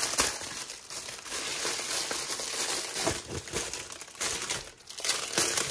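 Plastic packaging crinkling as it is pulled open: a continuous rustle broken by many sharp crackles.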